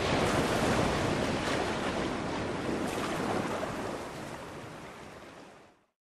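Steady rushing noise of sea surf and wind, slowly fading and dying away shortly before the end.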